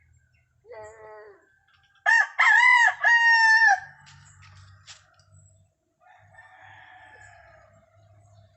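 A rooster crowing loudly once, a crow in three pitched parts lasting under two seconds, after a shorter falling call about a second in. Fainter rough calling follows near the end.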